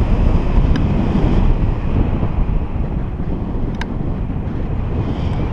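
Loud, steady wind noise buffeting a GoPro's microphone in paraglider flight, with two small ticks about one and four seconds in.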